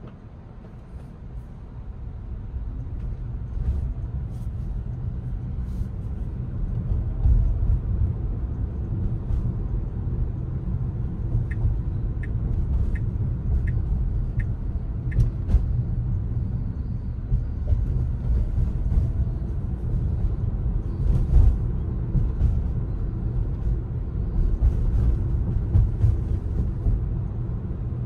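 Low road and tyre rumble of a Tesla Model Y driving, building over the first few seconds as the car picks up speed, then holding steady. About halfway through come five short, evenly spaced high ticks.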